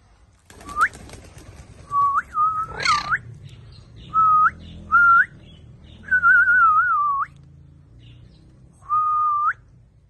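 Alexandrine parakeet whistling: a run of short, clear whistles, most ending in a quick upward flick, with a harsher note about three seconds in and a longer wavering whistle about six seconds in.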